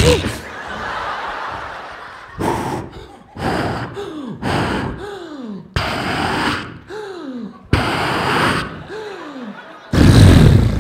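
Mouth-made comic sound effects: a run of sudden harsh blasts, several of them followed by a falling, whining vocal glide. The loudest and heaviest blast comes near the end.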